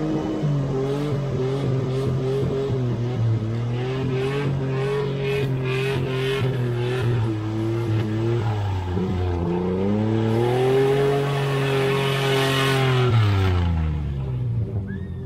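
A vehicle engine working through a mud hole. It runs with wavering revs, then climbs in pitch and holds about ten seconds in, under a loud rushing hiss, and winds down near the end.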